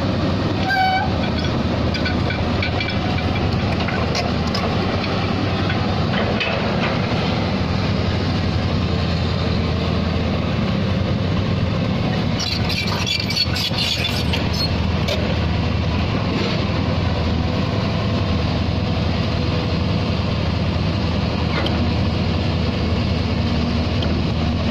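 Hyundai Robex 220-9SH crawler excavator's diesel engine running steadily under working load as the machine digs. A stretch of scraping and clatter comes about halfway through.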